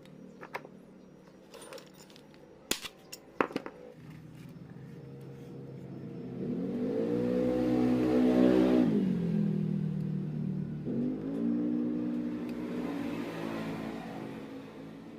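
Honda CRF's single-cylinder four-stroke engine idling, then revved twice, each rev held briefly before falling back to idle; the first rev is longer and louder. A few sharp clicks sound near the start.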